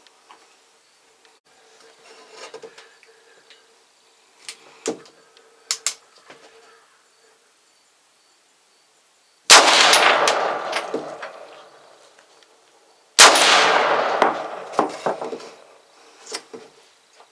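Two rifle shots at feral hogs, about four seconds apart, each a sharp crack followed by a long echo that dies away over two to three seconds. A few light clicks come before them.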